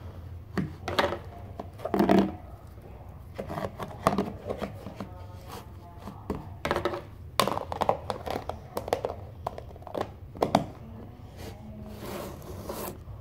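Hands squishing and kneading slime in plastic storage containers: irregular squelches, crinkles and knocks of the plastic tubs, over a low steady hum.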